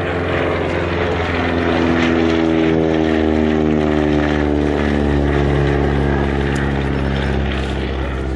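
Propeller-driven piston-engined aircraft flying past, its engine note swelling and then dropping steadily in pitch as it goes by.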